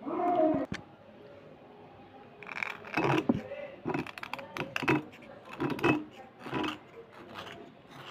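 A knife blade scraping along a slate pencil in a series of short, crisp strokes, starting a couple of seconds in.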